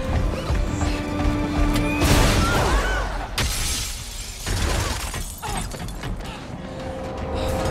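Film soundtrack: dramatic score with a loud crash of breaking, falling debris about two seconds in, lasting over a second, after which the music continues more quietly and builds again near the end.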